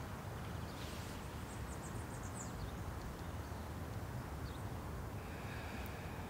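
Quiet room tone: a steady low hiss, with a few faint high chirps during the first couple of seconds and a faint thin high tone near the end.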